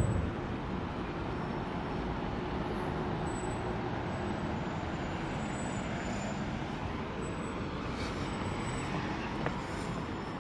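Steady hum of city road traffic: cars and buses passing.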